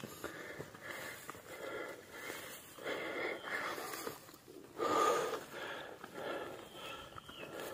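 A hiker panting heavily while climbing a steep trail under a heavy pack: a run of quick, uneven breaths.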